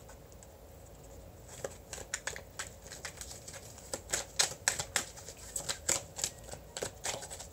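Tarot cards being shuffled by hand: an irregular patter of sharp card clicks and snaps that starts about a second and a half in and grows busier near the middle.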